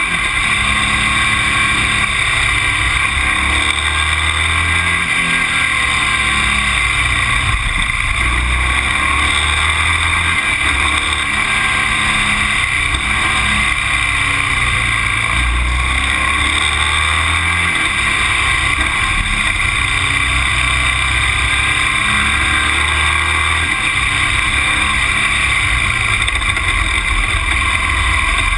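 Steady running noise of a road vehicle on the move, heard through an on-board action camera, with a low rumble that swells and fades every couple of seconds.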